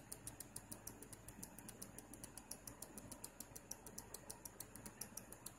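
Switched-mode power supply making a faint, rapid, even high-pitched ticking, about eight ticks a second, over a low hum. The uploader does not know the cause.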